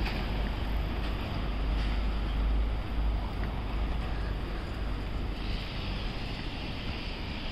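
Steady city street noise, mostly a low traffic rumble that swells briefly a couple of seconds in, as of a vehicle passing.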